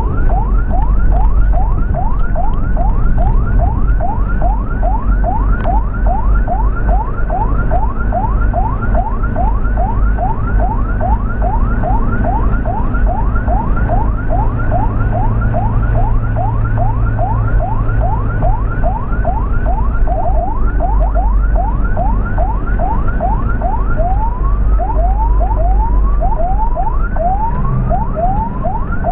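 Ambulance siren in a fast yelp: short rising sweeps, about three a second, over a steady low rumble. Around two-thirds of the way through, the sweeps slow down and spread apart.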